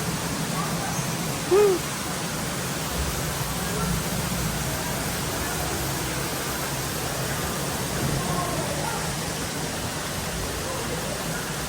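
Steady hiss of indoor hall ambience with faint distant voices, and one short, loud hoot-like cry about a second and a half in.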